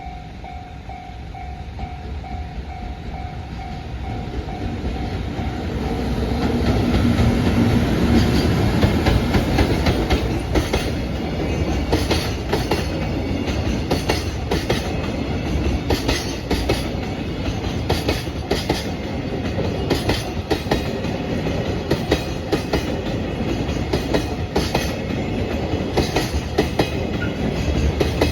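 A JR Freight EF210-100 electric locomotive hauling a long train of container wagons passes a level crossing. A level-crossing bell rings at first. The train's noise then swells as the locomotive comes by about seven seconds in, followed by a long run of wheel clicks over the rail joints as the wagons roll past.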